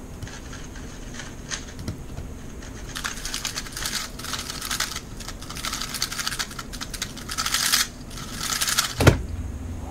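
A 3x3 speed cube being turned fast during a timed solve: a rapid clicking clatter of the layers that starts about three seconds in and lasts about five seconds. Near the end, a single sharp slap as the hands come down on the speedcubing timer pads to stop the time.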